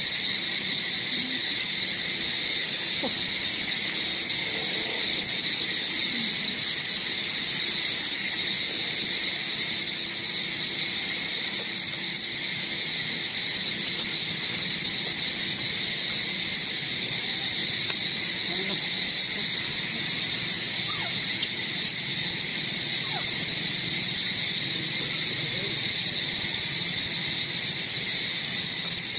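Steady insect chorus: a continuous high shrill drone that does not change, with a few faint short squeaks now and then.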